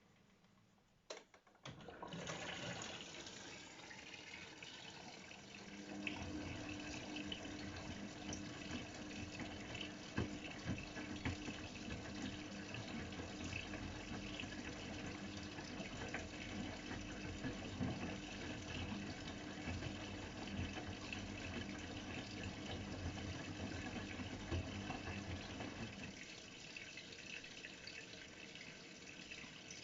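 AEG Öko-Lavamat 693 washing machine taking in water: a couple of clicks about a second in, then a sudden rush of water filling the machine about two seconds in. A steady hum runs alongside from about six seconds in until near the end.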